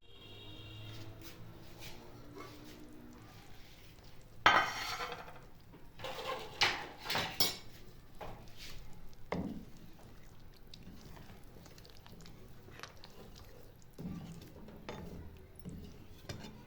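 Metal utensils and cookware clinking: one loud ringing clang about four seconds in, then several lighter clinks and knocks.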